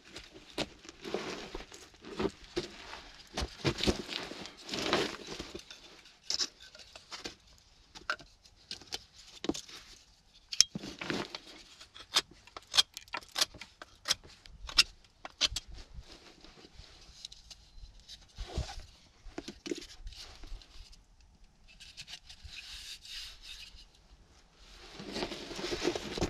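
Rustling with irregular knocks and scrapes of hands-on shelter-building work with sticks, grass and stone.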